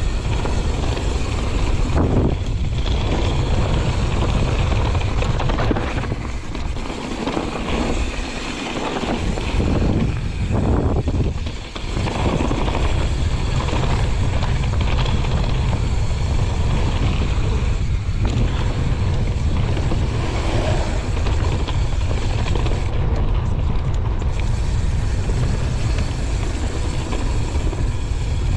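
Mountain bike rolling down a trail, with wind rushing over the microphone and tyre noise from the trail surface. There is a short dip in level near the middle.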